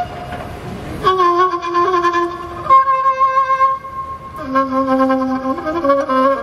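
Kamancha (Azerbaijani spike fiddle) playing a slow melody of long held bowed notes, coming in about a second in.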